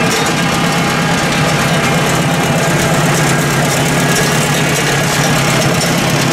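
1959 Oliver 550's four-cylinder gas engine idling steadily, with an even firing pulse and no change in speed.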